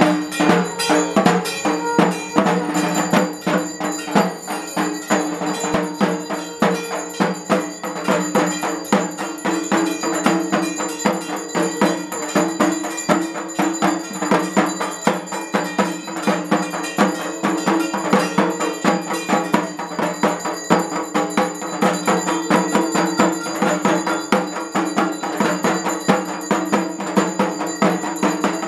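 Ritual percussion of a Durga Puja aarti: drums and clanging metal bells beaten in a fast, steady rhythm, with bell tones ringing on over the strokes.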